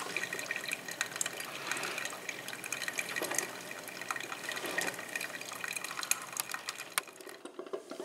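Black+Decker single-serve drip coffee maker brewing: hot water sputtering and gurgling through the brew basket, coffee trickling into the mug, with a constant crackle of small irregular pops. The sound dies down about seven seconds in.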